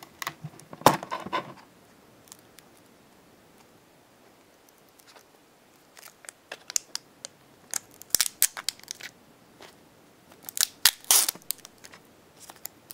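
Clear plastic packaging tray and film of a small electronics box being handled: plastic crinkling, scraping and clicking. It comes in three spells, at the start, from about six seconds in, and again around eleven seconds, with quiet gaps between.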